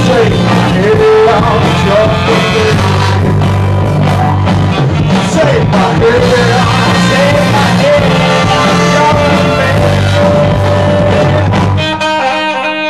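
Live ska band playing loud: a lead vocalist singing over a horn section, guitar, bass and drums. Near the end the singing stops and the music thins to a few held notes.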